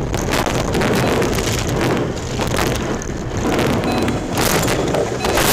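A car running off the road and ploughing through snow and brush on the roadside: loud, continuous rough rumbling and scraping, broken by many knocks and thuds as the body and underside hit the ground and debris.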